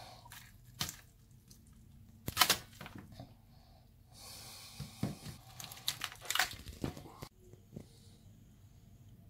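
Hands pulling boiled meat off a cooked sheep's head: wet tearing and squishing, with scattered sharp clicks and cracks, the loudest about two and a half seconds in.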